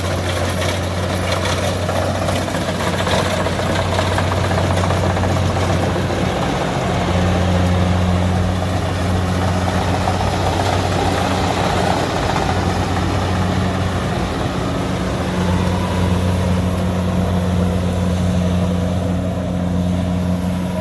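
Kubota DC70 combine harvester's diesel engine running steadily as the machine harvests rice, a loud continuous low drone with the noise of the cutting and threshing machinery over it.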